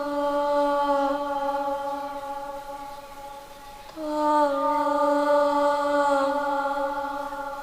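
A human voice moaning in two long held tones as a horror sound effect. The first dips slightly in pitch at the start and fades over about three seconds. The second comes in abruptly about four seconds in and is held longer.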